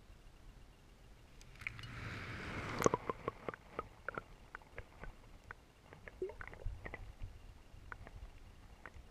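Faint, muffled water sound heard by a camera underwater: a rushing swell that ends in a sharp knock about three seconds in, followed by a string of irregular small clicks and ticks.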